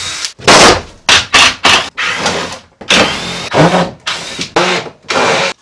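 Ryobi cordless drill/driver run in a series of short trigger bursts, its motor whirring up and stopping again about a dozen times while cabinet woodwork is unscrewed.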